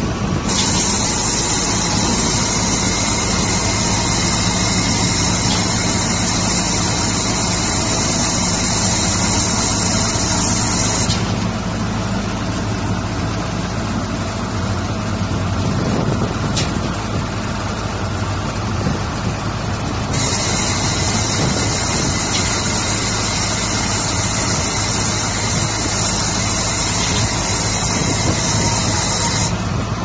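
Diesel engine of a self-loading concrete mixer running steadily as the machine moves. A high hiss comes in and cuts off sharply twice over the engine sound.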